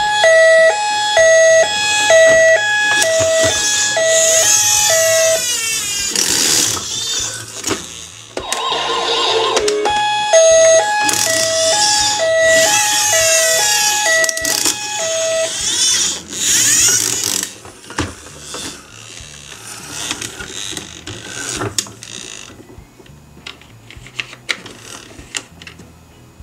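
Robocar Poli Amber ambulance toy's electronic hi-lo siren, a high beep and a low beep alternating, played twice for about five seconds each, with warbling electronic sound effects between and after. Near the end, scattered plastic clicks and taps.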